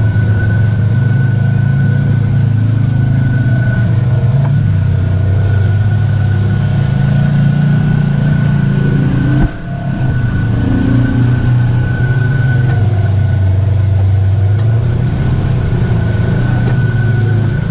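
Polaris RZR side-by-side engine running steadily under way, a low drone with a thin, steady high whine above it. About nine and a half seconds in the sound breaks off sharply for a moment, then picks back up.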